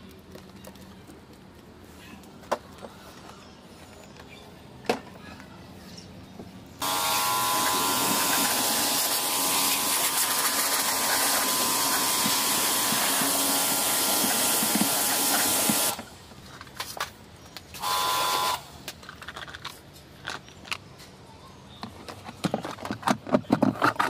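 Electric pressure washer running, its jet spraying water into the plastic wash tub of a semi-automatic washing machine: a loud hiss with a steady motor whine that starts suddenly about seven seconds in and cuts off about nine seconds later, then one short burst. Near the end, a quick run of sharp clicks and knocks.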